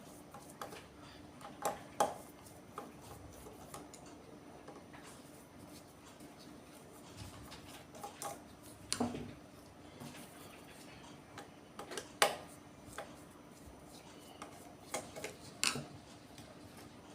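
Scattered small clicks and metallic taps of a metal limit switch being handled as its head cover is unscrewed, with a few sharper knocks, the loudest about nine and twelve seconds in.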